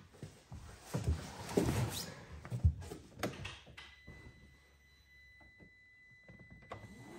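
Knocks and thumps of someone climbing into a Polaris Ranger 1000 XP's cab and pulling the door shut, the loudest about two and a half seconds in. After the key is turned on, a thin steady high electronic tone sounds for about three seconds, and right at the end the engine begins cranking with a rising whine.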